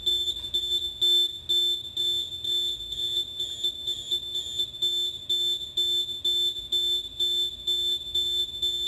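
CCC BK2000 tent washer's cycle-complete alarm beeping, very loud: a high electronic tone repeating about twice a second, signalling that the automatic wash cycle has finished.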